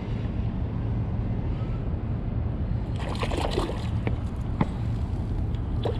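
A hooked fish thrashing and splashing at the water's surface about three seconds in, followed by a few smaller single splashes, over a steady low rumble.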